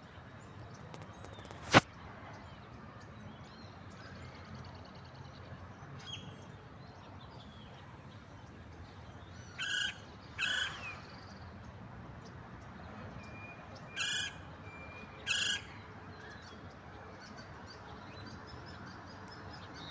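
Woodpecker calling: two pairs of short calls, the first pair about ten seconds in and the second a few seconds later, over faint bird chirps. A single sharp knock about two seconds in is the loudest sound.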